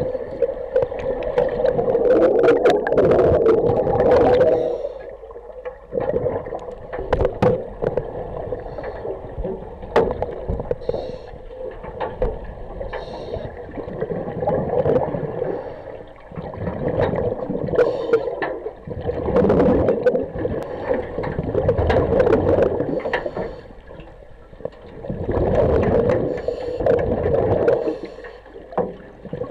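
Divers' regulator breathing heard underwater: exhaled air bubbles up and gurgles in surges of a few seconds, with quieter gaps between breaths.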